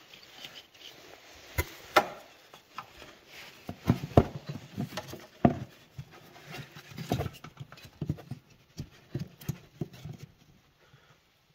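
Irregular light knocks and clicks from handling engine parts, dying away near the end.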